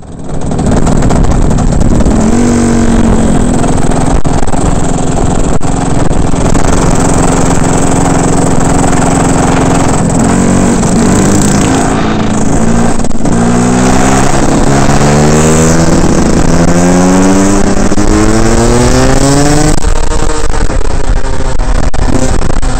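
Rotax 125 two-stroke kart engine running hard, heard onboard over wind noise. The revs dip briefly a couple of times, then climb steadily for about ten seconds before dropping sharply near the end.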